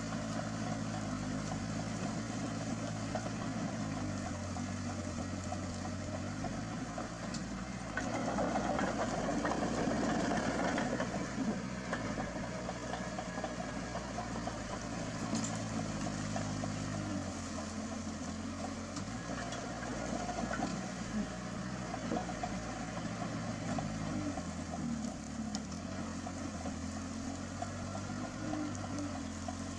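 Heavy earthmoving machine's diesel engine running steadily, its speed stepping up and down a few times. It gets louder for a few seconds about eight seconds in.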